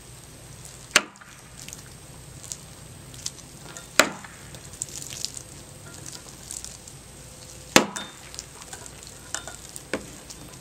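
Flick cuts with a Schrade SCHF44 double-edged dagger striking a hanging water-filled plastic jug: three sharp smacks a few seconds apart, with a few lighter taps between.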